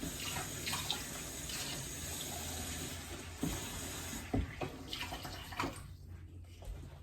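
Water running steadily into a pot of dal for about four seconds, then stopping, followed by a few light knocks.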